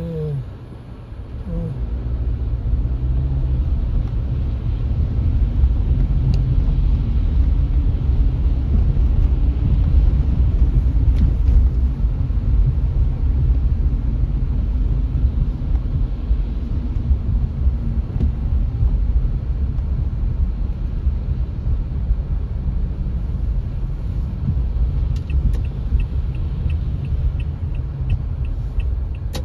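Car cabin road noise: a steady low rumble of engine and tyres on a wet, slushy city street, dipping briefly about a second in. Near the end comes a run of light, evenly spaced ticks, about two to three a second.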